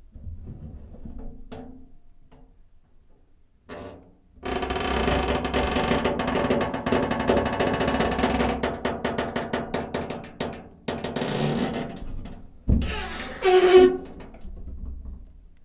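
Metal door foley: a few faint creaks and knocks, then about four seconds in a long, dense metallic rattle lasting about six seconds. Near the end a sharp bang is followed by a short, loud ringing metallic screech.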